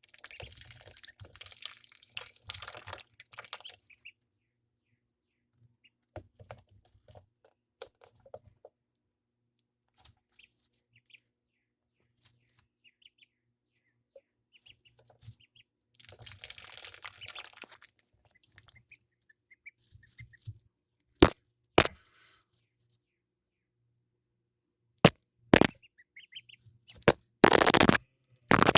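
Ducklings peeping and moving about, with two bursts of scuffling. Near the end comes a run of loud, sharp cracks, the loudest sounds.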